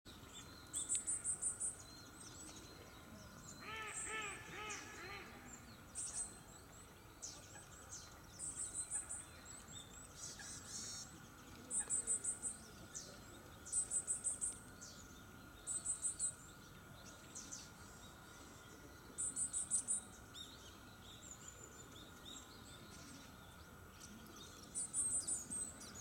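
Small songbirds calling in a fruiting persimmon tree: short, very high-pitched twittering bursts repeated every second or two. A lower, repeated call comes about four seconds in.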